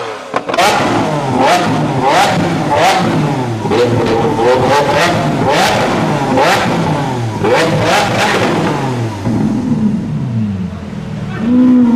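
Lamborghini Aventador V12 being blipped repeatedly: the engine note rises sharply and drops back about once a second, each lift-off marked by sharp exhaust pops and bangs. The revving eases near the end, then the engine holds a steady note and starts to climb again.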